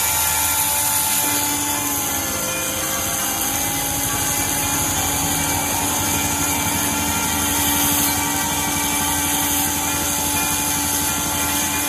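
Handheld rotary tool running steadily with a whine, its small disc bit grinding a piece of clear quartz; the pitch drops slightly about two seconds in as the stone is pressed on.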